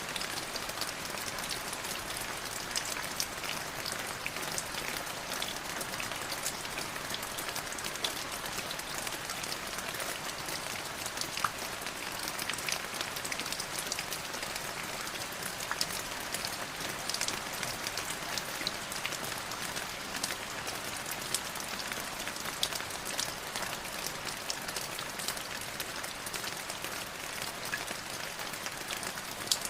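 Light drizzle: a steady hiss of fine rain with many small raindrop ticks scattered throughout.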